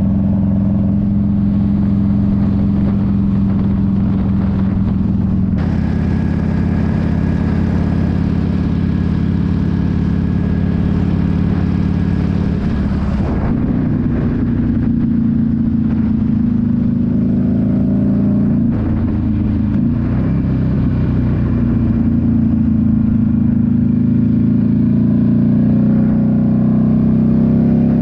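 Motorcycle engine running under way at road speed, a steady drone whose pitch shifts about halfway through and again a few seconds later.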